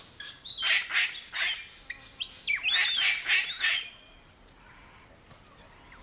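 Palm cockatoos calling: a run of short harsh calls and whistled notes over the first four seconds, then a single brief falling whistle.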